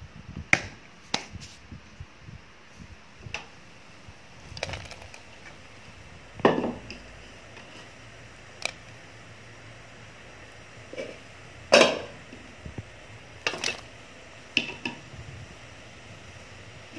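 Irregular knocks and clinks of kitchen containers and utensils, a plastic basin and cookware handled while oyster mushrooms go into the soup pot. The loudest knocks come about a third of the way in and again a little after two-thirds.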